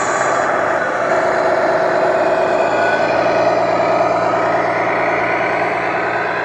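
Simulated diesel truck engine sound from a 1/14-scale Kenworth RC truck's sound unit as the truck drives slowly past. It runs steadily, with its pitch rising slightly partway through.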